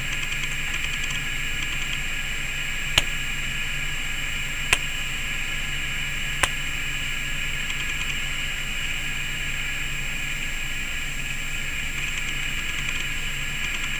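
Steady hiss with a low hum and a faint high tone, broken by three sharp clicks about 1.7 seconds apart a few seconds in.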